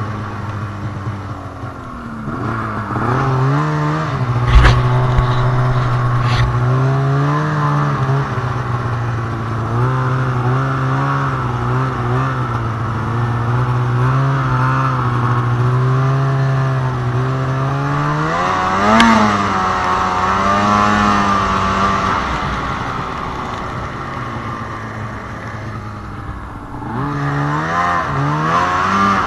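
Arctic Cat ZR 800 snowmobile's two-stroke twin engine under throttle: the revs climb about two seconds in and hold steady at speed, surge briefly around nineteen seconds, then drop off and pick up again near the end. A sharp thump about four and a half seconds in.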